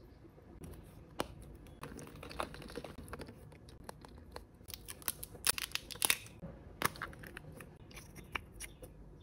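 Crinkling and tearing of a surprise egg's plastic wrapper, thickest in two spells, with sharp clicks from the plastic capsule halves being snapped shut and pried open.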